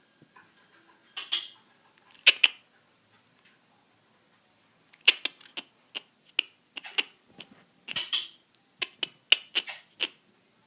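Pet bird giving short, sharp chirps: a few at first, then a rapid run of them from about halfway through.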